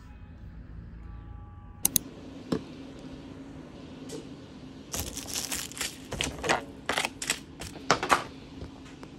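Scattered sharp clicks and taps: two close together about two seconds in and one more shortly after, then a busier, irregular run of them in the second half.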